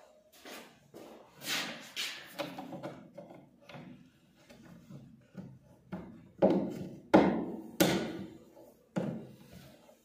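Irregular knocks, clicks and rubbing from a cabinet gas strut and its plastic mounting bracket being handled and pressed into place against the cabinet door. Three loud knocks come close together a little past the middle.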